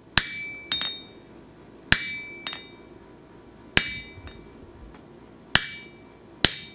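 Blacksmith's hammer striking on an anvil, each blow ringing out. Five heavy blows less than two seconds apart, the first three each followed by a lighter tap, the last two coming quicker near the end.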